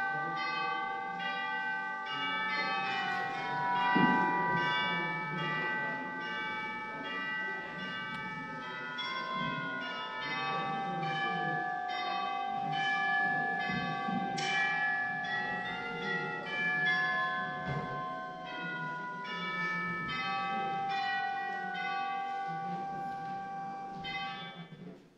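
Bell chimes ringing a slow tune, each note sustaining and overlapping the next, with a low thump about four seconds in. The chimes cut off suddenly at the end.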